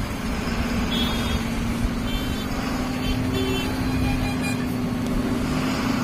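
Ashok Leyland heavy vehicle's diesel engine running under way, heard from inside the cab: a steady drone that climbs slightly in pitch, with faint rattles.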